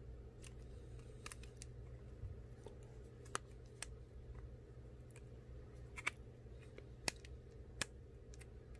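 Faint, scattered small clicks and taps as iPhone 8 display flex-cable connectors are pressed down onto their logic-board sockets, about ten irregular clicks over a low steady hum.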